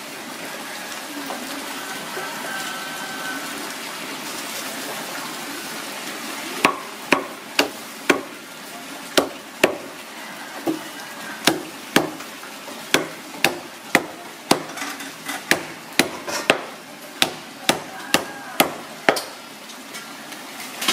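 Meat cleaver chopping roast pork on a round wooden chopping board: sharp knocks, irregular and about two a second, starting about six and a half seconds in.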